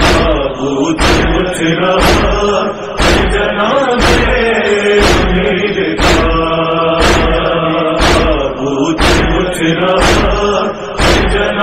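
A noha, a Shia lament, chanted in long held notes, with a sharp loud beat about once a second keeping time: matam, the mourners striking their chests.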